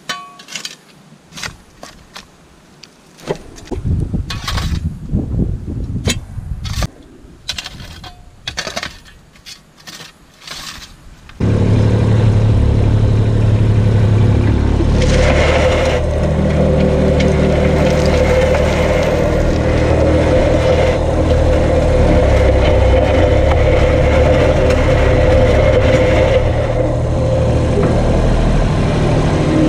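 A steel shovel scrapes and scoops into a pile of gravelly dirt, with sharp scrapes and clicks. About 11 seconds in, the Kubota BX25 tractor's three-cylinder diesel cuts in suddenly and then runs steadily and loudly.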